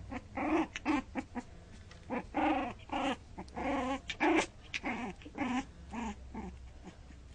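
One-month-old Cairn Terrier puppy making a rapid string of short, high growls and yips in play-fighting, about two a second, dying away near the end.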